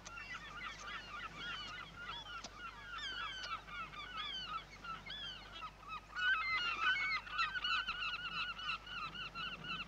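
A large flock of birds calling all at once, many short overlapping calls, swelling louder about six seconds in.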